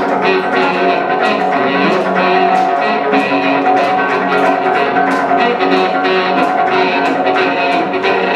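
Live instrumental music: a plucked and strummed stringed instrument playing a rhythmic passage over a steady beat, between sung choruses.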